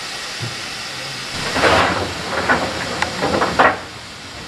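GWR 2251 Class 0-6-0 steam locomotive hissing steam from low down by its cylinders. From about a second and a half in come five or six louder, irregular bursts of steam, the first the loudest.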